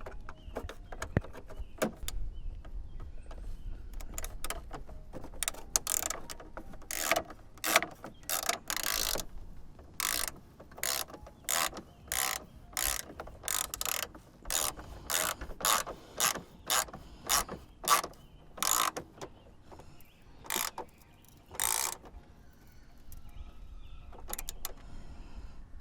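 Hand ratchet driving bolts home: a run of short, sharp ratcheting strokes, about one to two a second, starting a few seconds in and stopping a few seconds before the end.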